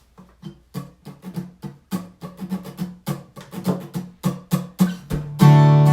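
Background music on guitar: a run of quick plucked notes, then a loud strummed chord held near the end.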